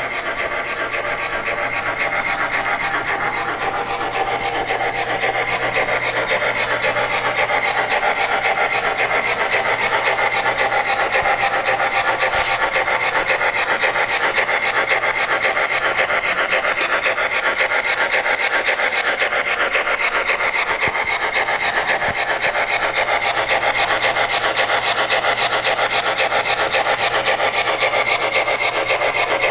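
An MTH HO-scale PRR 2-8-2 Light Mikado steam locomotive running with its Proto-Sound 3.0 sound: a fast, even steam chuffing from the model's speaker, mixed with its wheels running on the rails. It grows louder over the first few seconds as the engine comes out of the tunnel, and there is a brief click about 12 seconds in.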